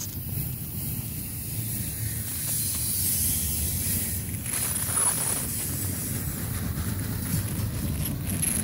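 Double-stack intermodal freight train's well cars rolling past: a steady low rumble with hiss, and faint high squeals falling in pitch about halfway through and again near the end.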